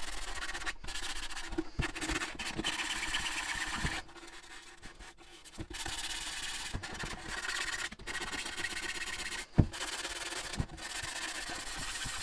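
A sanding block being rubbed back and forth by hand over filler on a 3D-printed plastic helmet piece, a rough scratchy hiss in repeated strokes. The sanding pauses briefly about four seconds in. A single sharp knock comes near the three-quarter mark.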